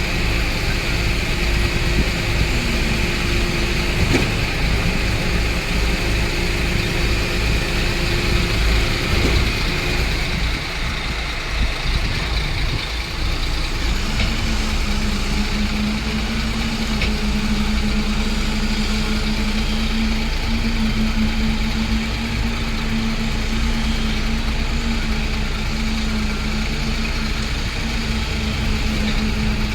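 Diesel engine of a concrete pump truck running steadily, its tone shifting to a lower steady hum about halfway through.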